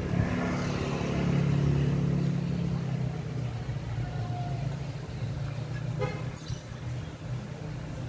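A motor vehicle engine running steadily, loudest for the first two to three seconds and then fading, with a few light clicks about six seconds in.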